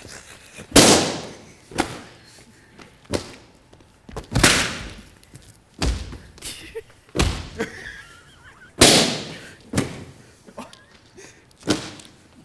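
Balloons being stomped and popped one after another: about nine sharp bangs, each with a short ring, spaced roughly a second or two apart.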